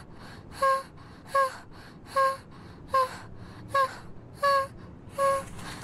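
A high, child-like cartoon voice sobbing in short, even sobs of about the same pitch, about seven in a row, one roughly every three-quarters of a second.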